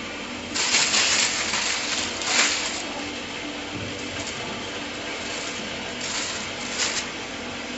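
Hand-handling noises while shaped cookie dough is laid out on a baking tray: a few short rustling, scraping bursts, the longest about half a second in, then quieter work.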